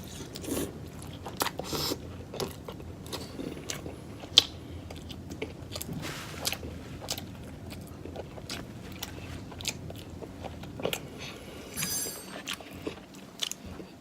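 A person chewing and biting food close to the microphone: irregular wet mouth clicks and crunches, with one sharper click a little past four seconds in and a short squeaky sound near the end.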